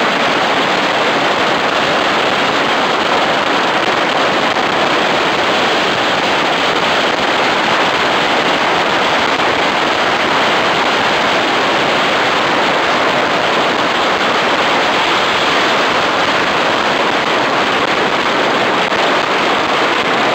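Firecrackers going off in a dense, unbroken crackle, so many bursts at once that they merge into one steady, loud roar of noise.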